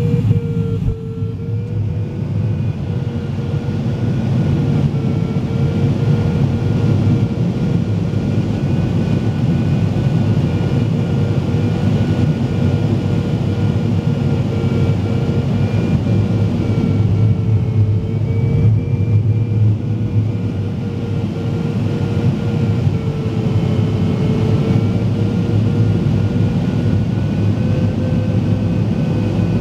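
Steady rush of airflow in a glider cockpit. Over it runs a continuous electronic variometer tone that wavers slightly in pitch.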